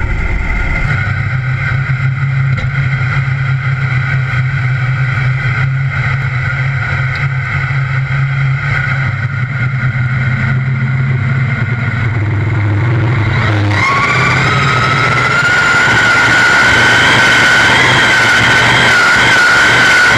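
Competition pulling tractor's big engine idling with a deep, steady drone, then about 14 seconds in it revs up with a rising high whine and stays at high revs as the tractor sets off down the pulling track.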